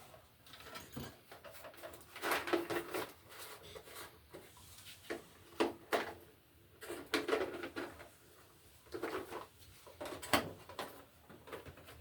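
Hands working bare copper ground wires and hand tools in an electrical box: irregular clicks, taps and rustling scrapes, with several sharper clicks.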